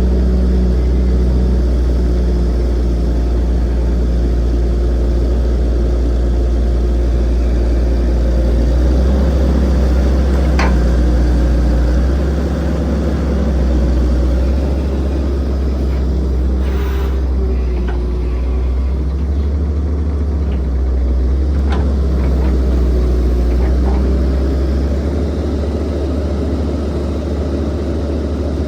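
Diesel engine of heavy earthmoving machinery running under load, a deep steady drone whose level and pitch shift every few seconds as the work goes on, with a few short sharp knocks about ten, seventeen and twenty-two seconds in.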